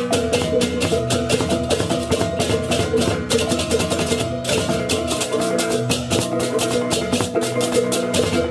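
Balinese baleganjur gamelan music: fast, dense clashing of cymbals and drums over steady ringing gong and metallophone tones.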